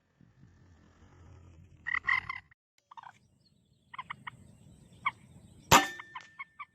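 Short croaking calls of common moorhens, one every second or so. About three-quarters of the way through comes a single sharp crack from an air rifle shot, the loudest sound here, followed by a few more short calls.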